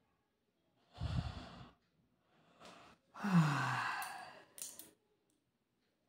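A woman yawning: a breathy intake about a second in, then a long voiced exhale a couple of seconds later that slides down in pitch and ends in a short breath out.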